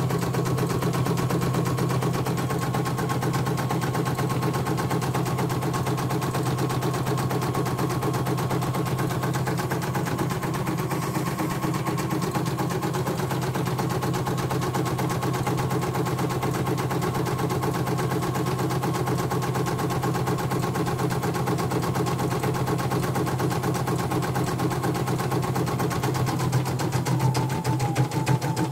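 CNY portable embroidery machine stitching a design, its needle bar clattering in a fast, even rhythm over a steady motor hum. It runs smoothly with no thread breaks.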